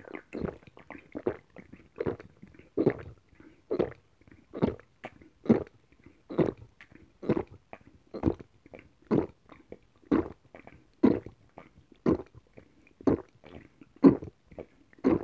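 Close-miked gulping of a fizzy soft drink (Fanta) in one long drink, a loud swallow about once a second, steady and regular.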